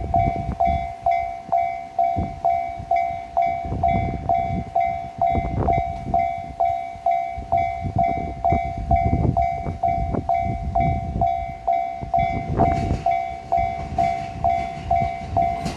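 Japanese level crossing warning bell ringing steadily at about two strokes a second, over a low rumble. A KiHa 40 diesel railcar's wheels start clacking over the rail joints from about three-quarters of the way in.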